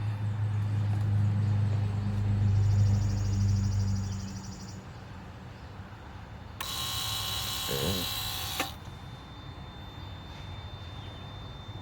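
The electric pump motor of a Lexus GS 300 brake booster assembly runs with a steady low hum, pressurising the system during the ABS programming and bleeding stage. It stops about four and a half seconds in. A short hiss follows a couple of seconds later.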